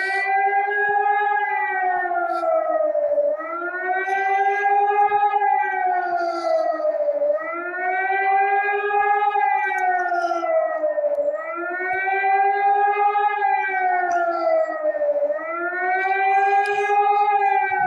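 Civil defense siren sounding a test signal: a loud wail whose pitch rises, holds and falls again in a regular cycle about every four seconds.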